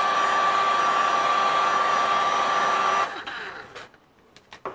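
Electric heat gun blowing on its lowest setting, a steady rush of air with a whine. It stops abruptly about three seconds in, followed by a few faint clicks.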